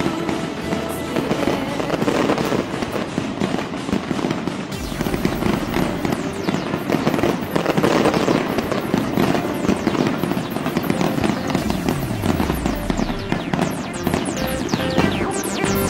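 Fireworks crackling and popping over music, with several rising whistles near the end.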